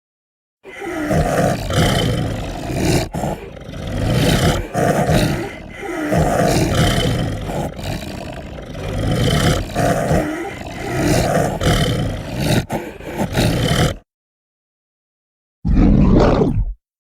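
Werewolf sound effect: a long run of deep growls and roars that swell and fade about every second and a half, then cut off suddenly. After a short pause comes one brief roar.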